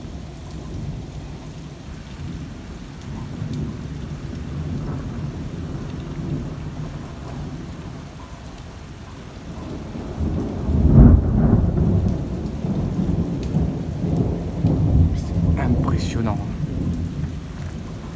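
Thunder rumbling continuously over rain during a violent thunderstorm, with a loud thunderclap a little past halfway that rolls on for several seconds.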